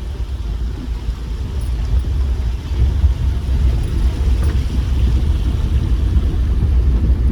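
A 4x4 SUV driving, heard as a steady low rumble of engine and tyres that grows a little louder about three seconds in.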